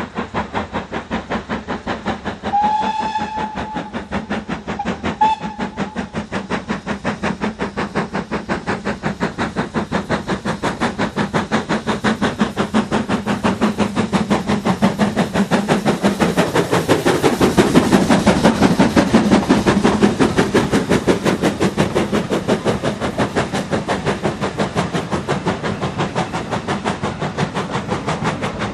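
BR Standard Class 4 tank steam locomotive hauling a train, its exhaust beating in a steady, even rhythm that swells as it draws level and passes. Its whistle sounds about two and a half seconds in, a blast of about a second, then a short toot two seconds later.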